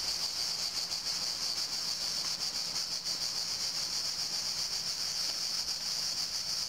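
Cicadas buzzing in a steady, loud, high-pitched chorus.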